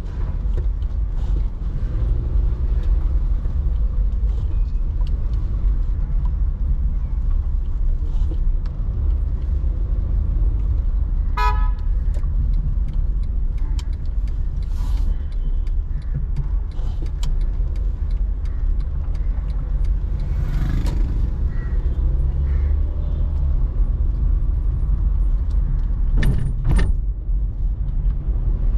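Steady low rumble of a car driving through city traffic, with a short horn toot about eleven seconds in and two sharp clicks near the end.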